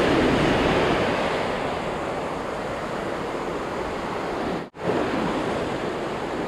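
Ocean surf breaking and washing up around the shallows, with wind on the microphone. The sound cuts out for an instant about two-thirds of the way through.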